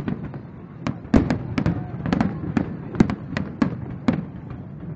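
Fireworks display: aerial shells bursting in a rapid, irregular string of sharp bangs, several a second, over a continuous low rumble.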